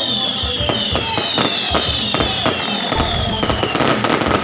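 Aerial fireworks bursting in rapid succession: a dense run of bangs and crackles, with high whistling tones that fall in pitch.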